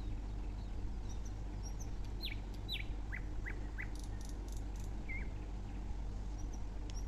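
Birds chirping in the background: a few short, falling chirps, most of them about two to four seconds in, over a steady low hum.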